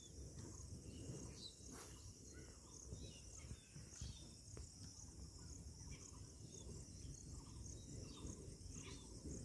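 Faint outdoor ambience: a steady, high-pitched chorus of insects trilling, with scattered short bird chirps over a low rumble of wind.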